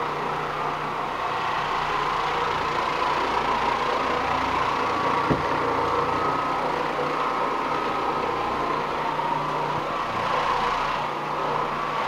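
Oreck Orbiter floor machine's motor running steadily as its nylon carpet brush scrubs the carpet, a constant hum, with one brief knock about five seconds in.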